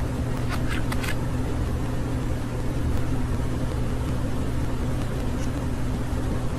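A budgerigar gives a few brief high chirps about half a second to a second in, and one faint one later, over a steady low hum.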